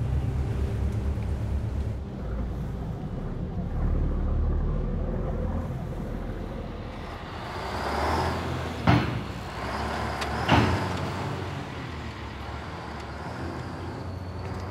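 A truck driving past with its engine running, the noise swelling about halfway through. There are two sharp clanks about a second and a half apart as it passes. A low steady rumble comes before it.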